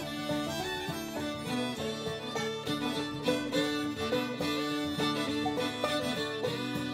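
Background bluegrass-style music led by a fiddle, with plucked strings underneath.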